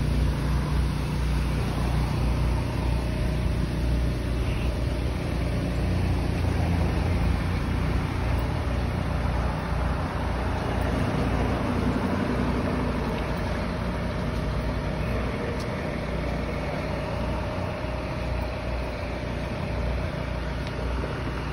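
Utility bucket truck's engine running steadily with a low drone, its boom in use at the pole.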